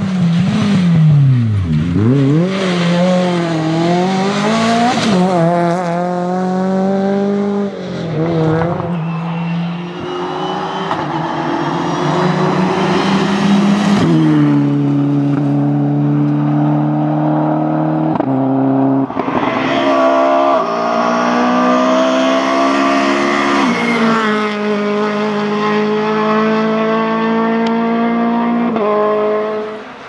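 Rally car engines driven hard on a tarmac stage, among them a Renault Clio and a Ford Fiesta. The engine note climbs with the revs and drops abruptly at each of several gear changes, with a swooping fall in pitch about two seconds in as a car passes.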